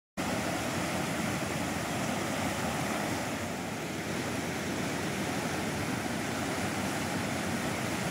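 Steady rushing of a swollen river in flood pouring over a submerged bridge, starting abruptly just after the start and holding level throughout.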